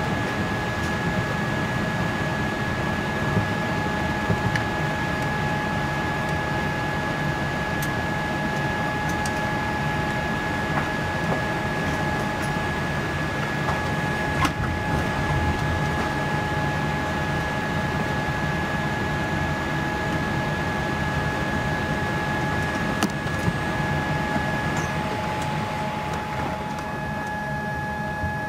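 Steady cabin noise of a Boeing 787-8 taxiing: a low rumble under several steady whining tones, one high tone dropping out briefly near the end, with occasional faint clicks.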